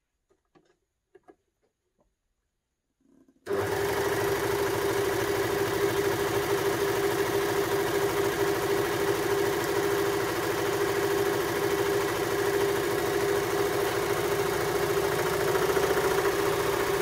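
Baby Lock Victory overlocker (serger) sewing a rolled hem, starting up about three and a half seconds in after a few faint handling clicks, then running at a steady speed with a steady hum.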